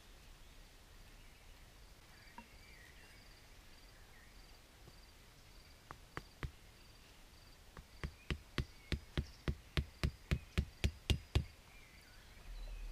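A stake being hammered into the ground to peg out a bivy: two knocks, then a steady run of about a dozen sharp knocks, roughly three a second.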